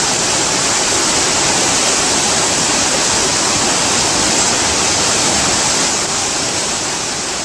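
Shallow river rapids rushing steadily, white water pouring over rocks; the rush begins to fade a little near the end.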